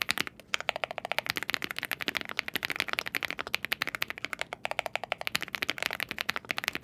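Fast, continuous typing on an MCHOSE GX87 tenkeyless aluminium mechanical keyboard fitted with KTT 안개블루 (fog blue) switches and a PC plate: a dense run of keystroke clacks, many per second, with a short lull about half a second in.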